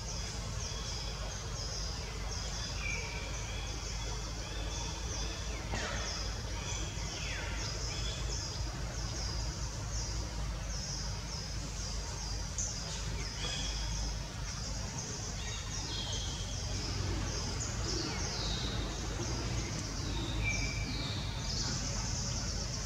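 Birds chirping in short, high, repeated notes, with a few falling whistles among them, over a steady low rumble.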